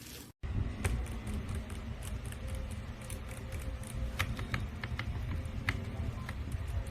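Keys on a mechanical keyboard fitted with XDA-profile PBT keycaps on wine red switches are clacking at an irregular typing pace, several strokes a second, over a steady low rumble.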